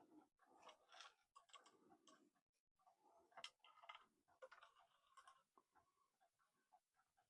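Faint, irregular small clicks and light rattles of a cuckoo clock's chain being worked through the case with a hook tool.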